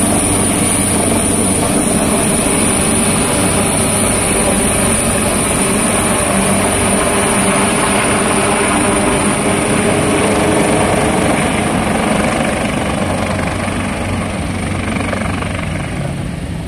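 Helicopter flying low overhead, its rotor and engine noise loud and steady, then fading over the last few seconds as it moves away.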